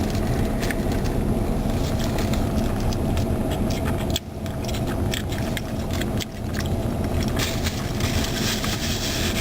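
Steady hum of a car idling, heard from inside the cabin, with scattered small clicks and rustles.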